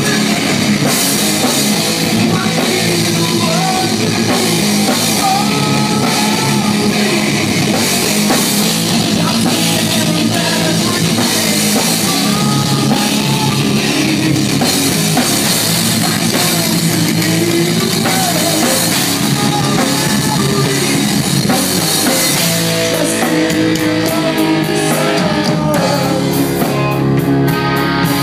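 Rock band playing live: a vocalist singing over electric bass, guitar and a drum kit. Near the end the drumming thins out and the guitar and bass ring on in held notes.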